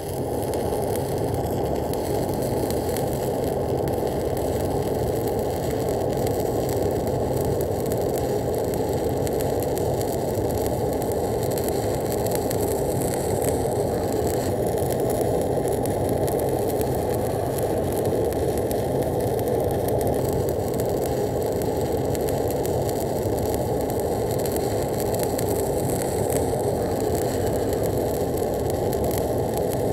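Stick (SMAW) welding arc burning steadily as an overhead root pass is run on steel plate, a continuous crackling hiss without breaks.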